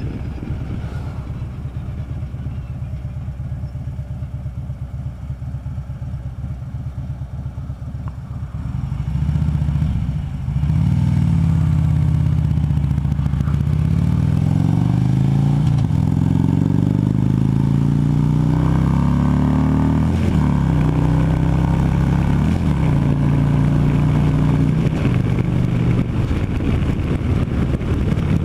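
Harley-Davidson V-twin engine running at a low steady pace, then opening up about nine seconds in and accelerating through several gears, its pitch climbing and dropping back with each upshift, before settling into a steady cruise.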